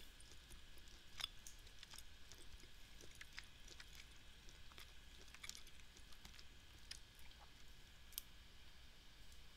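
Near silence: faint, scattered mouth clicks and chewing sounds picked up close by a headset microphone, with a sharper click near the end over a faint low hum.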